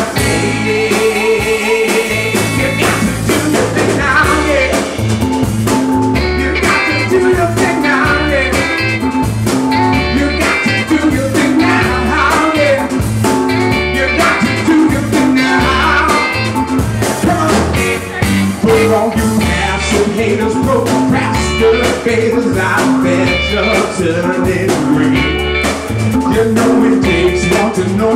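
Live soul band playing: a male lead singer over electric guitar, bass guitar and drums.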